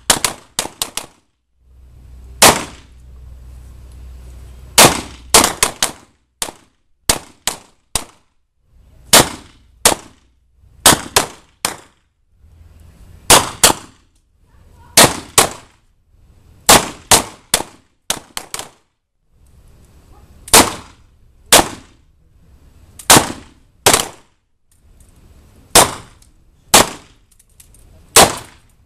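Revolver shots from several shooters firing at will: sharp, loud cracks at irregular intervals, roughly one a second, some coming in quick pairs and triples.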